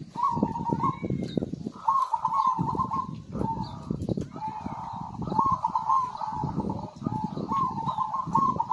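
Zebra doves (perkutut) cooing: rapid stuttering phrases of notes repeated one after another, about every second or so, with a low rumbling under the phrases.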